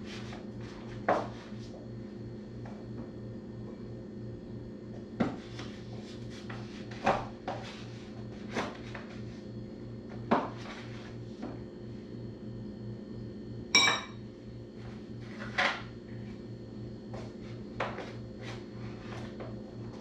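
Dishes and utensils knocking and clinking on a kitchen counter as food is handled: about a dozen scattered clacks, the loudest a sharp ringing clink about 14 seconds in. A steady low hum runs underneath.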